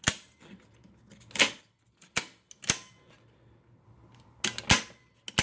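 Circuit breakers in a household breaker panel being switched back on one after another: a series of about seven sharp snaps, irregularly spaced, restoring power to the house.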